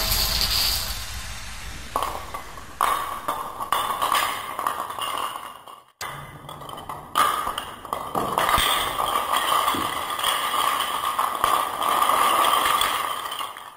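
Dominoes clattering onto a hard floor as a stacked domino tower falls apart, a dense run of quick clicks and taps. The sound cuts off abruptly about six seconds in, then the clatter starts again and runs until near the end.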